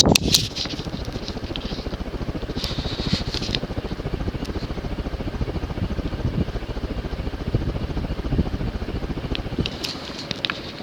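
Evergo S-vent 42-inch ceiling fan with a cast aluminum spinner motor running on high speed, its air movement giving a steady, rapid, even pulsing. A sharp knock sounds right at the start.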